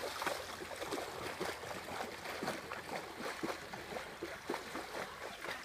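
A woman's feet and a Greater Swiss Mountain Dog's paws splashing at a run through shallow river water: a quick, irregular run of splashes.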